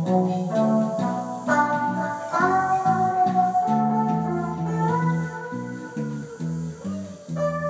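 Electric guitars played through an amp: a repeating low riff under a lead line of long, held notes that bend in pitch.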